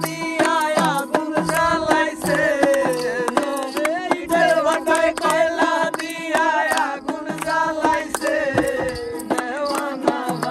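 Singing accompanied by a strummed ukulele. A sung melody runs over regular strummed chords, with a low thump about every three-quarters of a second.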